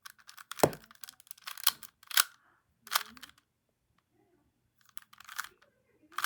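Rubik's brand Rubik's Cube being turned by hand: a run of scratchy plastic clacks and scrapes as its layers rotate, with a pause of over a second in the middle. The cube is loud, its layers scraping rather than turning smoothly.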